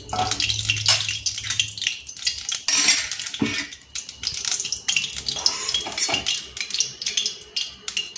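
Oil heating in a kadai, crackling and spitting in many irregular sharp clicks.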